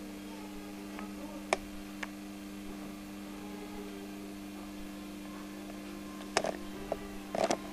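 Steady electrical hum from the bench equipment, with a few sharp light clicks about a second in and a short cluster of clicks and knocks near the end.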